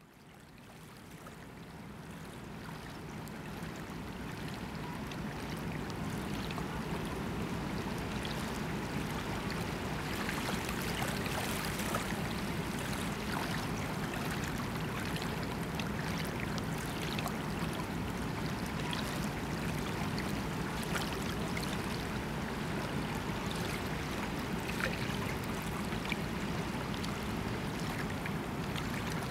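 River water lapping and trickling against the shore, with a steady low hum underneath. It fades in over the first few seconds, then holds steady.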